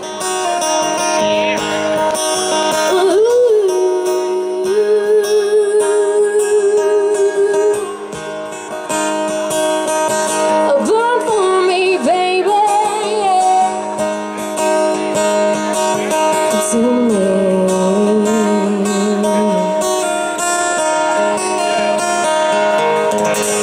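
A woman singing live to a strummed acoustic guitar, holding long notes with a wavering vibrato.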